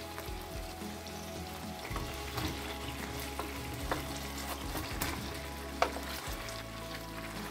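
Chicken leg quarters sizzling as they fry in oil in a pan. From about two seconds in, wooden spatulas click and knock against the pan as the pieces are turned, with the sharpest knock near the end.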